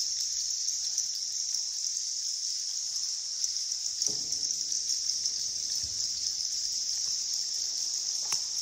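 Steady, high-pitched chorus of insects, with a faint brief low sound about halfway through and a short sharp sound near the end.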